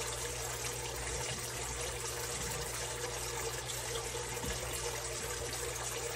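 A whisk stirring melting cheddar cheese sauce in a metal saucepan on the stove, over a steady hiss with a low hum.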